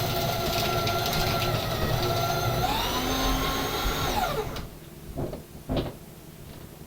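A small electric motor running with a steady whine, rising in pitch about two and a half seconds in, then winding down and stopping a little after four seconds; two short knocks follow.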